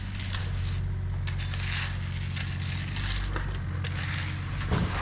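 Steady diesel engine hum from idling heavy equipment, under repeated scraping of rakes and shovels through loose crushed-stone gravel. A single sharp knock near the end.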